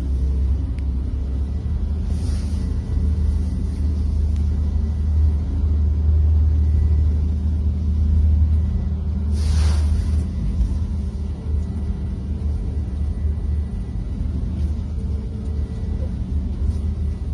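The ambulance vessel's engines drone steadily as it runs through heavy seas, heard from inside the wheelhouse. Two brief hissing rushes of spray hit the boat, about two seconds in and a little past halfway.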